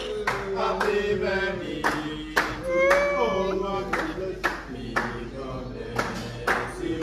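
Voices singing with steady rhythmic hand-clapping, about two claps a second.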